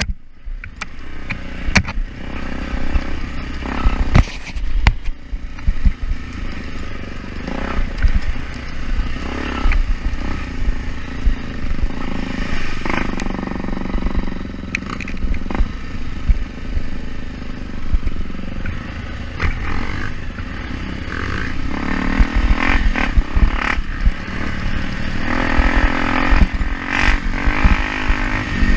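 Off-road motorcycle engine running and revving on a muddy trail, with clatter and knocks from the bike over the rough ground. The engine revs harder near the end.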